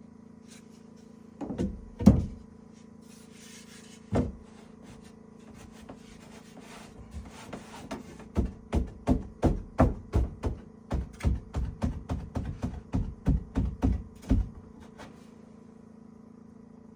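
Hammer driving nails into wood: a few separate blows, then light taps that build into a steady run of strong, even blows at about three a second, stopping about two seconds before the end.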